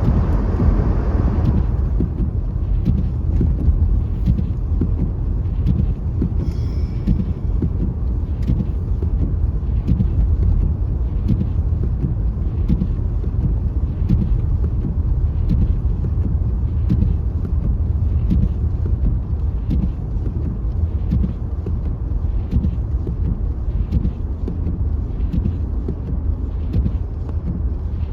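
Steady low rumble of a car driving on a snow-covered road, engine and tyre noise heard from inside the cabin, with faint light clicks throughout.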